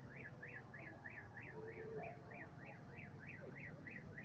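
Faint vehicle siren in a fast yelp, its pitch rising and falling about four times a second, over a low rumble of passing vehicles.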